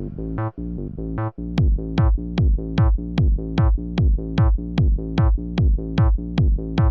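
Acid electronic music played live on an Elektron Octatrack: a held synth bass line, then about a second and a half in a four-on-the-floor kick drum comes in at 150 beats a minute, about two and a half hits a second.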